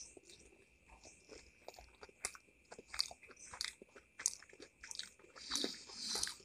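A person chewing a bite of fried chicken momo: faint, irregular soft clicks spread through the mouthful.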